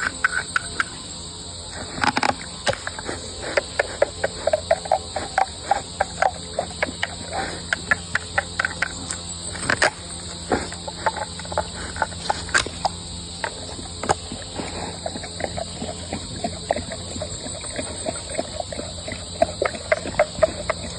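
A bear crunching and chewing a coconut in rapid, irregular cracks, over a steady chorus of crickets.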